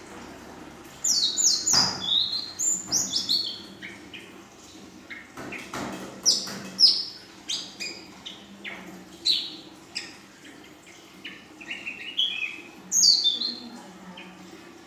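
Young female ashy drongo singing a varied, mimicry-filled song. Phrases of sharp whistled notes, mostly sweeping downward, come in bursts with short pauses between.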